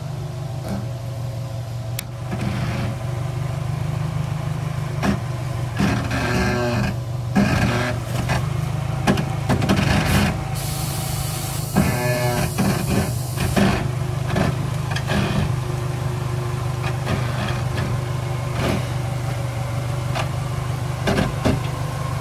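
Mitsubishi L300 4x4 van's 2.4 L 16-valve petrol engine running steadily at low revs while the van crawls over rock, with frequent knocks and scrapes from the tyres and underbody on the stone and a stretch of hiss about eleven seconds in.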